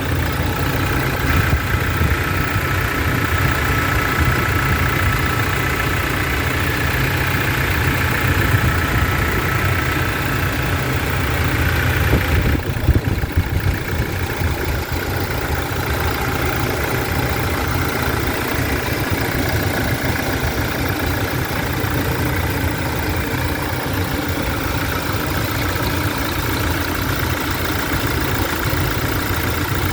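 Toyota 1GD 2.8-litre four-cylinder turbo-diesel engine idling steadily. A higher whine over the idle stops abruptly about twelve seconds in.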